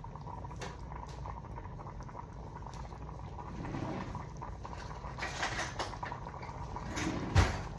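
Pot of tomato gravy simmering on the stove, with small scattered ticks and clinks, and one sharp knock near the end, like a spoon against the pot.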